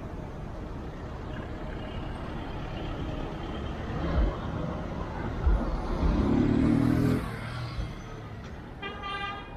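Street traffic: a vehicle passes close, loudest about six to seven seconds in, and a short car horn toot sounds near the end.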